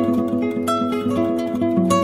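Background music: a plucked guitar picking quick, even notes.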